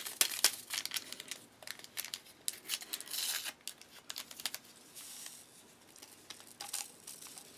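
MRE sugar packets being torn open and crinkled, a dense run of sharp crackles, with a short hiss about three seconds in as the sugar is poured out; the handling dies down to faint rustles after about four and a half seconds.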